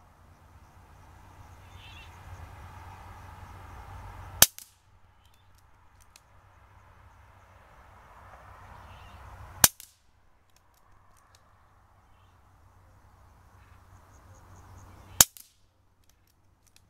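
KalibrGun Cricket .22 PCP air rifle firing three sharp shots, about five seconds apart, in rapid-fire shooting.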